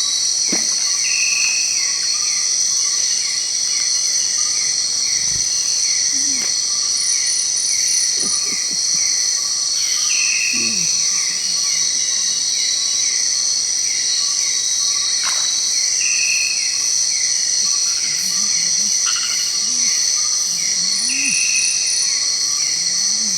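Dense night-time insect chorus of tropical rainforest: a steady, loud high buzzing trill, with a short falling chirp repeating about twice a second over it.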